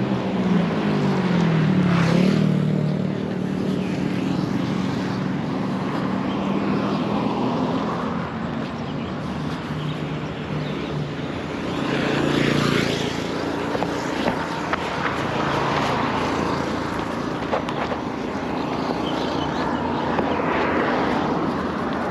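Road traffic passing close by: a car goes past in the first few seconds, its engine note falling as it passes, and a motor scooter goes by about twelve seconds in.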